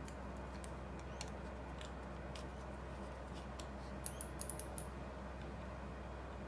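Faint, scattered clicks and light taps of small metal parts as a small screwdriver works the adjusting screw of a replacement SX-70 shutter solenoid, with a short run of clicks about four seconds in. A steady low hum runs underneath.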